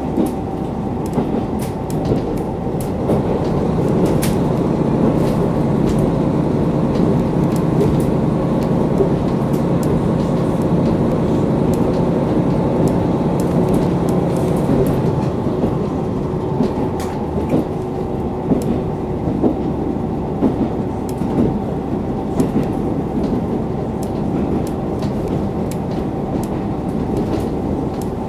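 KiHa 40 diesel railcar running along the line, heard from inside the car: steady rumble with frequent clicks of the wheels over the rail joints. The engine's steady drone stops about halfway through, leaving the wheel rumble and clicks.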